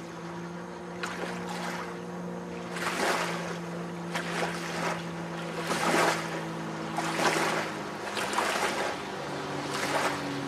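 Personal watercraft (jet ski) engine running with a steady drone, overlaid by repeated loud rushes of spray and hull slap on the water every second or so as it carves turns. The engine note drops about eight seconds in.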